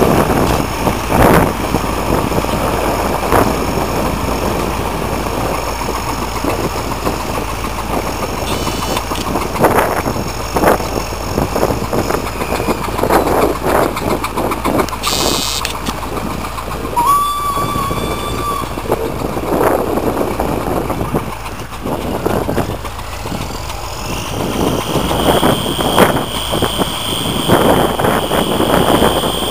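Diesel tractor engines working under load while pulling ploughs through stubble, a steady heavy running sound with knocks and rattles. There is a brief steady tone about halfway through and a high whine near the end.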